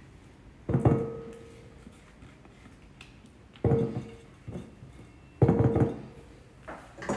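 A spatula knocked three times against a glass mixing bowl to shake off mascarpone cream cheese, each knock ringing briefly.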